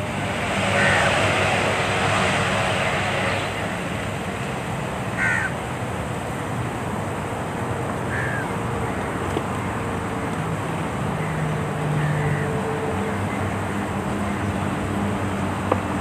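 A bird giving short calls every few seconds over steady outdoor background noise with a low hum.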